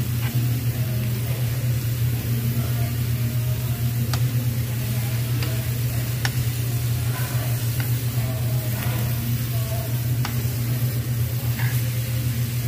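Pork belly and baby octopus sizzling steadily on a perforated round tabletop Korean BBQ grill plate, with metal tongs clicking against the grill a few times. A steady low hum runs underneath.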